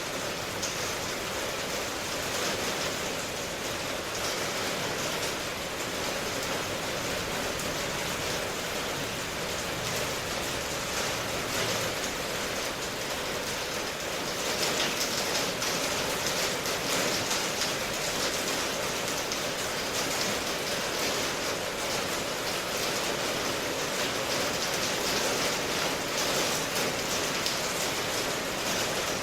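Steady rain falling, a continuous even patter with no break.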